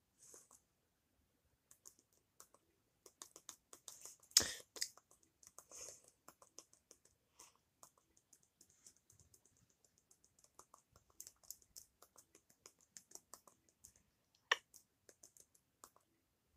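Quiet, irregular clicking of remote-control buttons being pressed to enter a password on a TV's on-screen keyboard, with two louder clicks, one about four seconds in and one near the end.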